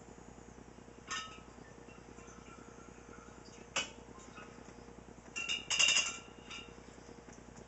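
Glass wine jugs and carboys clinking as siphon tubing and hands knock against them. There is a light knock about a second in, a sharper clink near four seconds, and a cluster of clinks with brief glassy ringing a little after five seconds, which is the loudest.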